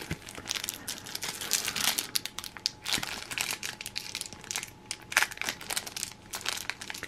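Foil trading-card booster pack crinkling as it is handled and torn open by hand: a quick, irregular run of crackles.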